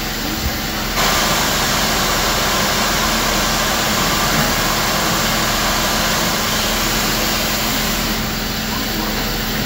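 Steady loud hiss of steam from the standing C38 class steam locomotive 3801, growing louder about a second in and easing slightly near the end, with a low steady hum beneath.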